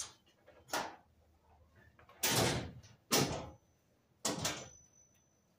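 A door knocking and scraping four times, each a short noisy sound trailing off.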